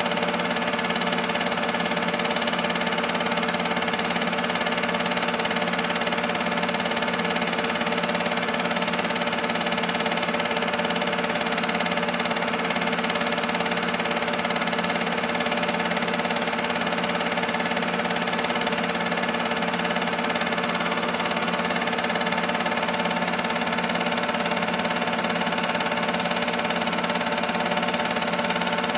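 Film projector running steadily, a constant mechanical hum of motor and fan with several steady tones and no change.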